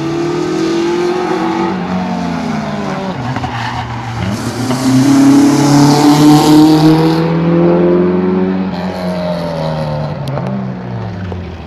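Rally car engine revving hard through a cone course, its pitch climbing and dropping again and again with throttle and gear changes. It is loudest as the car passes close, about five seconds in, with a hiss of tyre noise over the engine.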